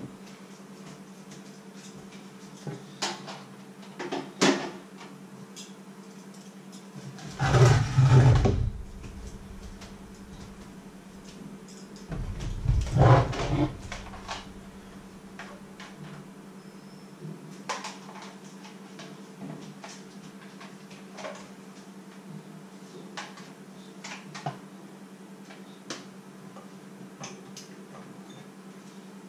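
Kitchen handling sounds: scattered light clicks and knocks of things being moved and set down, with two louder clattering bumps about 8 and 13 seconds in, over a steady electrical hum.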